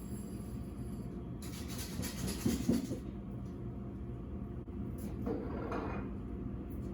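Handling noises over a steady low hum: a burst of rustling with a couple of knocks about a second and a half in, and a shorter scrape around five seconds in.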